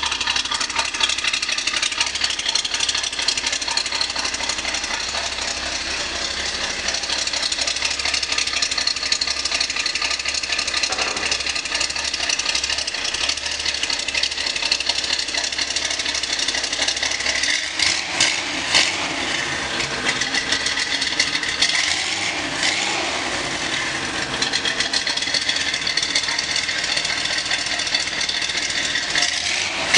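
Classic Jewett hot rod's engine idling through its custom exhaust with a steady rumble, revved briefly a few times in the second half.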